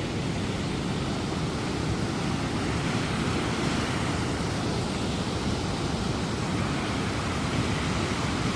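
Waterfall rushing: a steady, even roar of falling water, strongest in its low and middle range.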